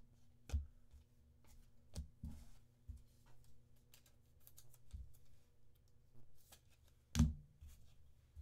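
Light clicks, taps and rustles of cards and packs being handled on a desk, with one louder knock about seven seconds in, over a faint steady electrical hum.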